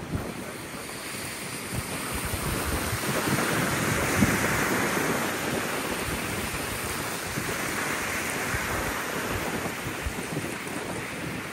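Ocean surf washing ashore, swelling twice, with wind buffeting the microphone.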